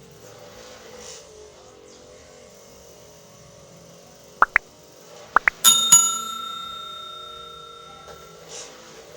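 A bell-like metallic ding, struck twice in quick succession about halfway through and ringing on for two to three seconds as it dies away. It is preceded by two pairs of very short, quick upward chirps.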